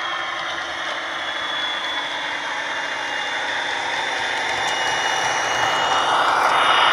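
Heljan model of the Falcon diesel locomotive with a DCC sound decoder playing its Maybach diesel engine sound through the model's speakers as it runs along the track hauling coaches. It gets louder as the locomotive comes close, near the end.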